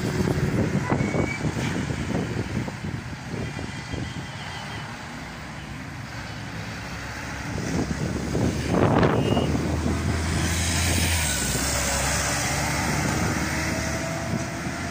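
Steady road traffic on a city bridge, with cars and trucks driving by; one vehicle passes close about eight to nine seconds in, its noise swelling and fading. Wind buffets the microphone afterwards.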